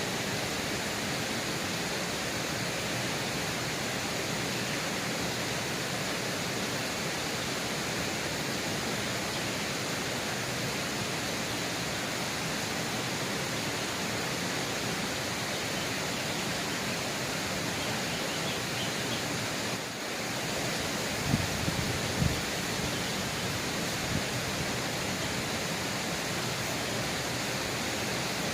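Steady rush of flowing river water, with two short knocks about a second apart a little past two-thirds of the way through.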